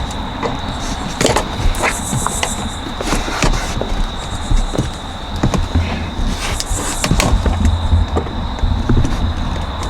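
Irregular clicks, knocks and scrapes of an old car sun visor's mounting bracket being pried and worked loose from the roof, over a steady high tone.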